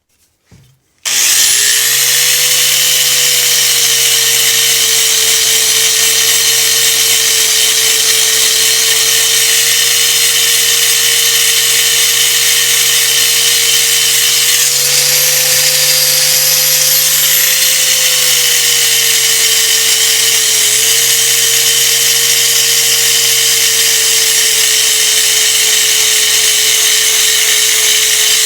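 A handheld electric power tool spins up about a second in and runs steadily. Its motor pitch shifts slightly up and down a few times, then it cuts out near the end and starts again.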